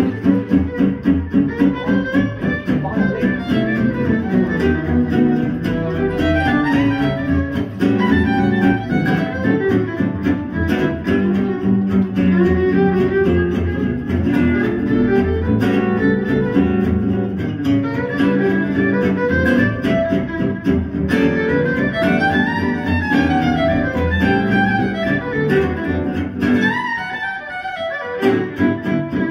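Recorded music played back through KEF LS60 Wireless speakers and heard in the room, with a steady pulse and a melody over it. The sound thins out briefly about 27 seconds in.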